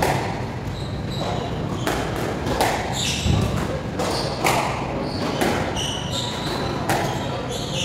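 Squash rally: the ball is struck by rackets and smacks off the walls in quick sharp impacts, with short high squeaks from the players' shoes on the wooden court floor.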